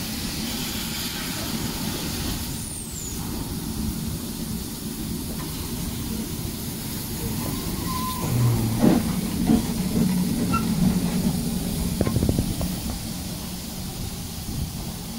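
Hawthorn Leslie saddle tank steam locomotive standing in steam, hissing steadily. From about eight seconds in, a louder low rumble comes in with a few metallic knocks.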